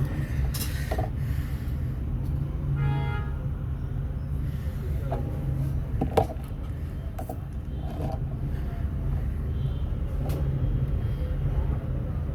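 Steady low rumble of background road traffic, with a short pitched toot about three seconds in and a sharp click about halfway through.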